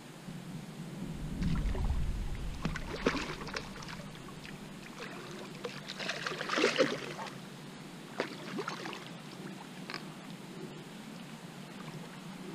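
A hooked fish thrashing and splashing at the surface of a pond as it is drawn into a landing net, with several splashes, the loudest about three and about seven seconds in. There is a low rumble about a second or two in.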